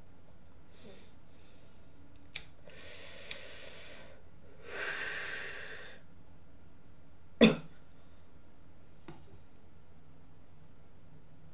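A person takes a long breath in and then breathes out audibly, with a couple of sharp clicks around the breaths. A louder, sharp knock follows about seven seconds in, then a faint click.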